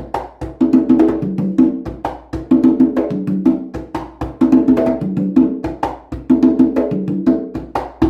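Hand-played Meinl conga and tumbadora fitted with synthetic beMBé drumheads, playing a repeating rhythm. Sharp slaps and ringing open tones on two pitches form a phrase that comes round about every two seconds.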